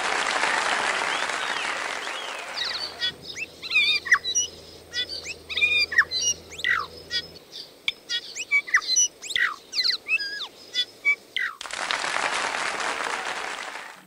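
Audience applause, then a New Zealand bellbird (korimako) singing a rapid series of short clear notes, many sliding up or down in pitch, for about eight seconds; the applause starts again near the end.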